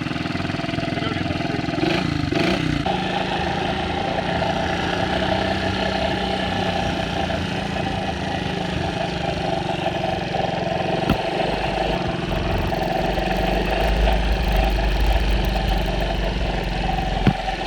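Honda ATC 125M's small single-cylinder four-stroke engine running steadily just after being started, with a deeper rumble building in the second half and a couple of short sharp clunks.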